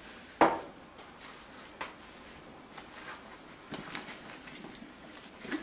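A sharp knock about half a second in, then soft scrapes and light clicks of a utensil stirring chopped vegetables and tomatoes in a frying pan.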